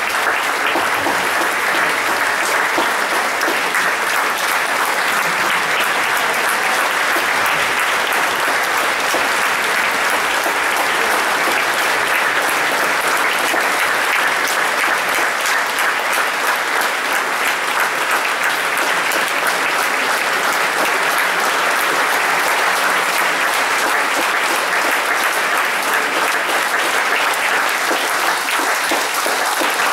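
Theatre audience applauding at a curtain call: dense, steady clapping with no pause.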